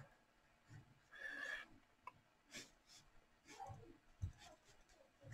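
Near silence, with faint scratches and ticks of a graphite pencil sketching on paper and a soft short hiss about a second in.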